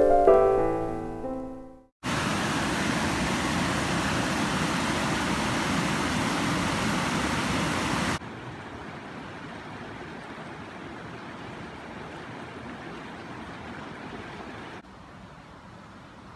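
A few piano notes ring out and fade, cut off by a moment of silence about two seconds in. Then a steady rushing noise like running water or wind sets in, stepping down to a quieter level about six seconds later and again near the end.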